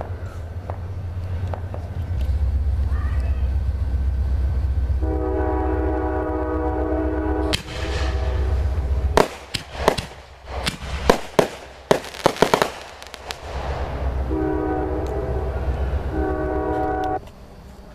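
Train horn blowing one long blast over a deep rumble. About four seconds later comes a quick run of sharp fireworks bangs and crackles. Near the end the horn sounds again with a long blast and then a short one.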